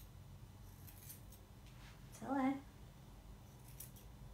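Curved grooming scissors snipping a dog's face fur, a few faint snips. About two seconds in comes a brief low vocal sound, like a hum, which is the loudest thing.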